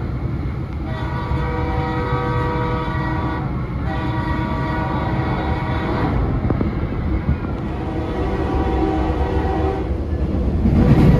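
Train's multi-chime air horn sounding several long blasts over the steady rumble of the moving train.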